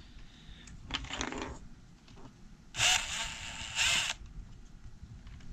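Cordless drill driving screws into a speaker mount in short runs: a brief one about a second in, then two louder runs around three and four seconds in, the motor whine rising and falling with each trigger pull.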